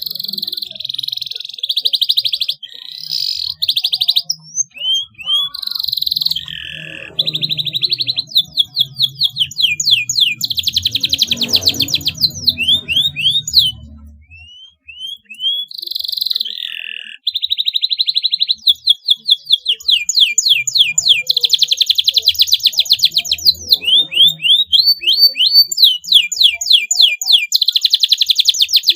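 Domestic canary singing a long, loud song of rapid trills, rolls and quick rising chirps, with a brief break about halfway through.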